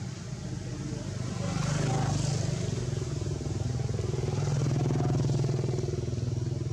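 A motor engine running steadily, swelling louder about a second and a half in and again around four and a half seconds.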